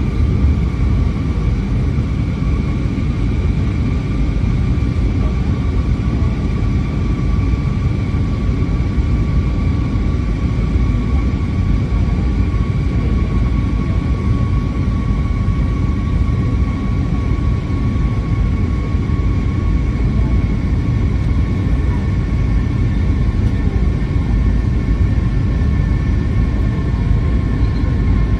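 Airliner cabin noise in flight: a steady low engine drone and rush of air, with a faint whine that sinks slightly in pitch over the stretch.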